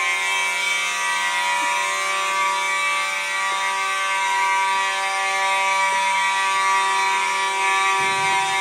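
Building fire alarm sounding a steady, unbroken, buzzy tone.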